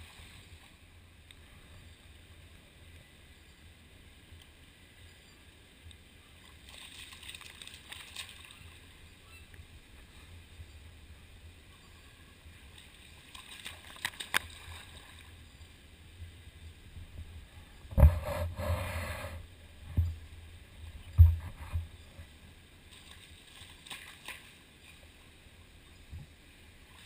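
Harbour seal splashing at the water surface as it thrashes a salmon, with scattered splashes and water sloshing. A run of louder splashes and low thumps comes about two-thirds of the way in.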